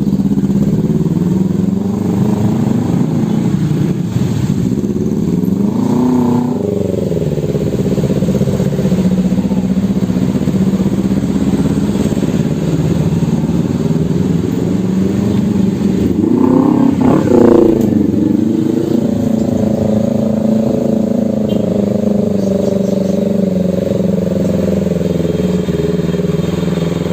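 Road traffic with engines running steadily. A vehicle passes close about six seconds in and another around seventeen seconds, its engine pitch bending as it goes by.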